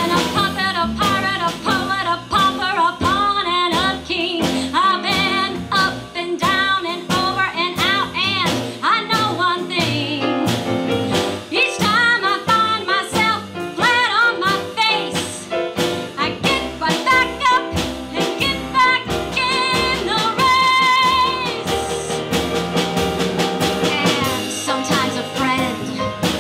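Female vocalist singing a show tune live with a jazz combo of upright bass and drums, holding one long note with vibrato about two-thirds of the way through.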